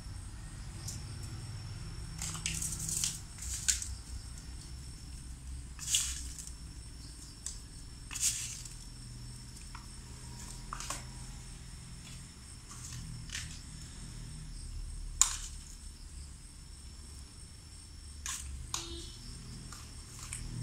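Wooden spatula scraping and knocking against a steel wok as pasta is stir-fried, in a dozen or so short, irregular strokes, the sharpest about two-thirds of the way through. A low steady hum runs underneath.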